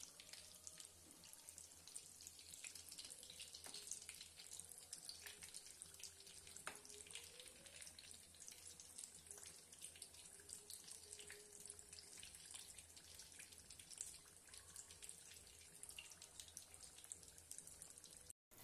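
Faint sizzling and crackling of batter-coated potato vadas deep-frying in hot oil, a dense patter of tiny pops.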